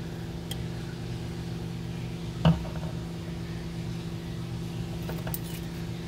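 Steady low hum throughout, with one sharp knock on the glass terrarium about two and a half seconds in and a few faint clicks.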